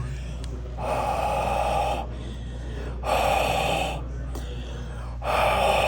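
A person blowing three long breaths onto a sensor to warm it and push up its temperature reading. Each breath is a breathy rush lasting about a second, under a steady low hum.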